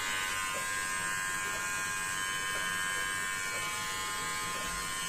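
Mi (Xiaomi) beard trimmer running steadily, an even electric buzz with a high whine.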